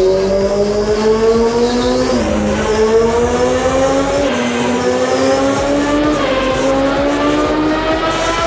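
Honda CBR900RR Fireblade's inline-four engine accelerating hard under load on a rolling road. Its pitch climbs steadily, dipping briefly about two and four seconds in.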